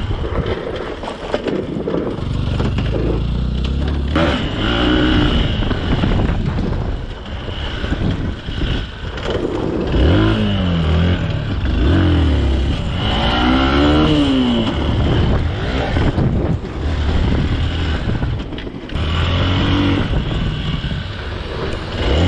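Off-road motorcycle engines revving in repeated bursts, the pitch climbing and falling several times over a steady low rumble.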